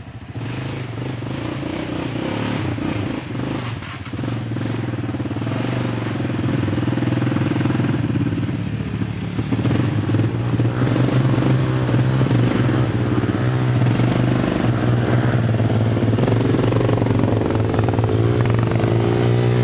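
ATV engines running as quad bikes ride along a dirt trail toward the listener, getting louder as they come near. In the second half the engine pitch rises and falls with the throttle.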